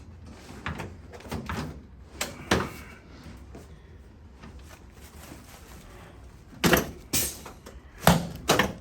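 A patient turning over on a chiropractic treatment table, with soft shuffling and a few knocks early on, then several louder sharp clunks from the table in the last two seconds.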